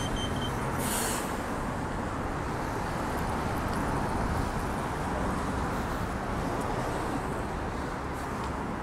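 Steady road traffic noise: cars driving past on a city street, with a brief hiss about a second in.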